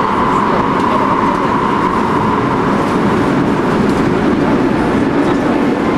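Subway train running, heard from inside the car: a steady loud rumble with a humming tone that fades after about two seconds and a lower hum building near the end.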